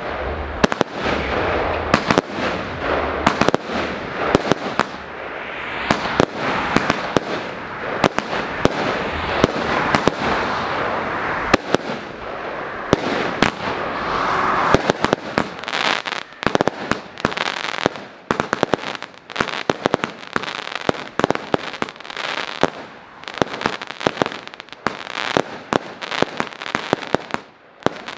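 The fireworks battery "Den store pagode" firing: a rapid run of sharp launch and burst reports over a steady crackling hiss. After about halfway the hiss thins and the bangs come more separately.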